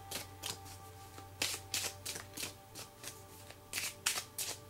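A deck of tarot cards shuffled by hand: a run of short, irregular card snaps and flicks, over quiet background music.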